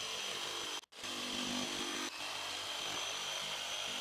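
Cordless jigsaw with a laminate blade cutting a rigid-core vinyl plank, its motor running with a steady high whine. The sound drops out briefly just under a second in.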